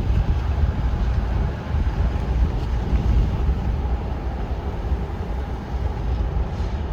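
Car driving at about 35 mph, heard from inside: a steady low rumble of road and engine noise with wind.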